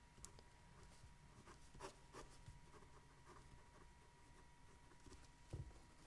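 Faint scratching of a pen writing on paper, in short irregular strokes, with a faint steady tone underneath.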